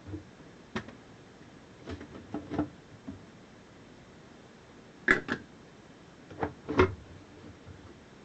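Irregular clicks and knocks of dishwasher drain-pump parts being handled and set down as the pump housing is taken apart, about eight in all, the loudest two a little past the middle and near the end.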